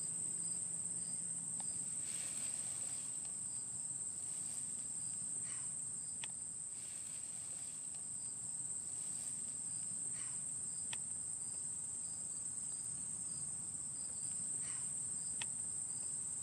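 Outdoor insect chorus of crickets: a steady, unbroken high-pitched trill. Brief falling chirps come in pairs every four or five seconds over it.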